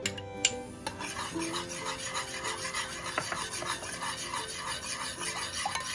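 A utensil stirring a dipping sauce, scraping the container rhythmically at about two to three strokes a second, starting about a second in.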